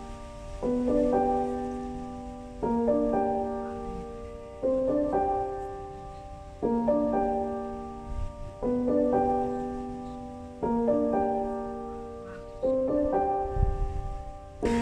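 Gentle piano music: a phrase of struck notes and chords repeating about every two seconds, each fading away before the next.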